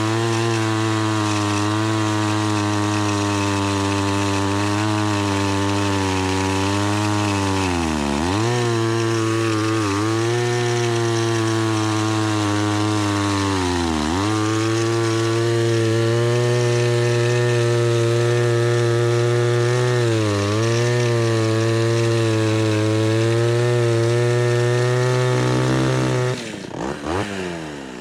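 Homelite Super XL two-stroke chainsaw running at high revs through a cut, its pitch dipping sharply and recovering about 8 and 14 seconds in. Near the end the throttle is let off and the revs fall away.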